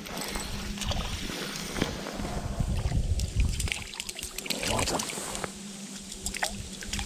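Water lapping and trickling, under an uneven gusty low rumble with scattered small clicks.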